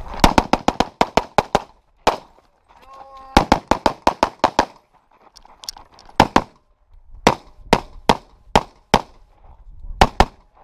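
Handgun fired in fast strings of shots: a rapid run of about eight shots, a single shot, another rapid run of about eight, then shots spaced out in pairs with short gaps between them.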